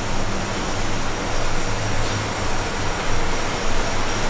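Steady low machine hum under an even rushing noise, with no clear starts or stops.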